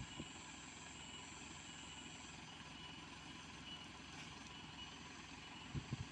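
Dump truck diesel engine running steadily at a low, even level, with a few short low thumps near the end.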